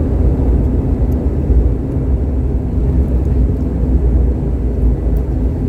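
Steady low rumble of an ATR 72's twin turboprop engines and its wheels rolling on the runway just after landing, heard inside the passenger cabin.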